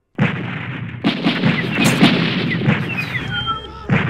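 Dubbed gunfight sound effects: a dense, rapid stream of gunshots with short falling whistles mixed in. The track drops out for a moment at the start, then comes straight back in.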